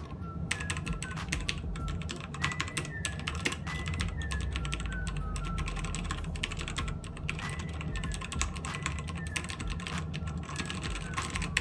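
Fast, continuous typing on a Royal Kludge RK61 60% mechanical keyboard with Gateron Red linear switches, many keystrokes in quick irregular succession.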